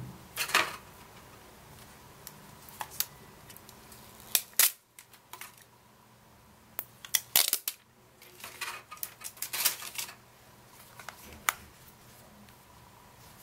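Clear protective plastic film being peeled off a Sony Ericsson Equinox flip phone, with crackling rustles and sharp handling clicks at irregular intervals.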